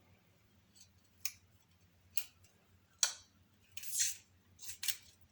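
Small kitchen knife cutting and scraping the papery skins off red garlic cloves softened by soaking in cold water: a string of short, sharp snips and scrapes, with one longer scrape about four seconds in.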